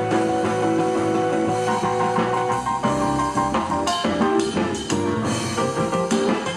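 Instrumental background music. A drum beat comes in about four seconds in.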